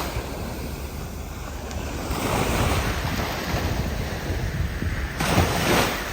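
Ocean surf washing on a beach, with wind buffeting the microphone; a louder surge of surf comes about five seconds in.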